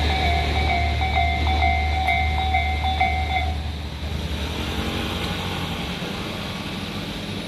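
A Japanese level crossing's electronic alarm ringing in a repeating chime over the low rumble of a passing diesel railcar. The alarm stops about three and a half seconds in, the rumble fades, and a quieter engine hum remains.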